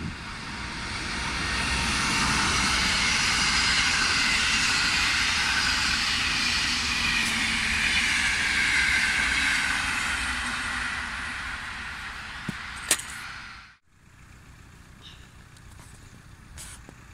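A locomotive-hauled passenger train passes at speed with a steady rush of wheels on rail, swelling over the first two seconds and fading after about ten. A couple of sharp clicks come near the end, then the sound cuts off abruptly to a faint steady background.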